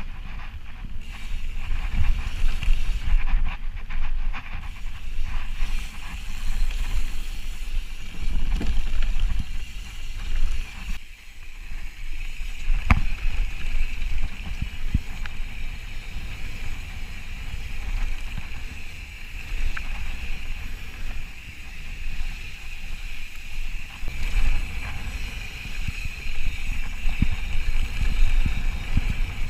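Ibis Ripley mountain bike descending a dusty dirt flow trail at speed. Wind buffets the microphone in a heavy rumble, tyres roll over packed dirt, and there is a steady high buzz. Sharp knocks of the bike over bumps come now and then, the loudest about thirteen seconds in.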